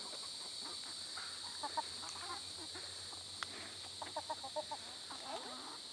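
A flock of chickens clucking softly as they feed, in scattered short calls with a quick run of clucks about four seconds in.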